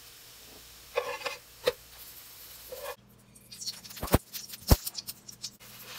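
A metal spatula scrapes briefly across a nonstick frying pan twice. Then hot oil crackles in the empty pan, with a few sharp pops.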